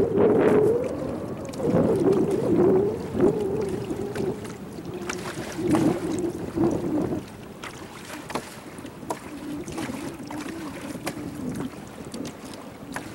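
Small boat's motor running with a wavering hum that drops lower and quieter about halfway through. Water splashes against the hull and wind buffets the microphone.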